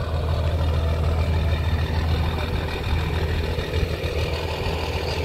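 An engine idling steadily, an even low drone that holds without revving.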